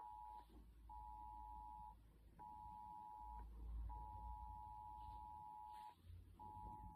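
Faint electronic beep tone, one steady high pitch, switching on and off in irregular stretches of one to two seconds with short gaps.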